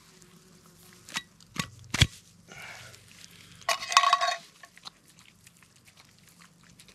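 A small metal tin being handled: a few sharp clicks of the tin and its lid in the first two seconds, then a brief metallic rattle about four seconds in as food is shaken out of it for a dog.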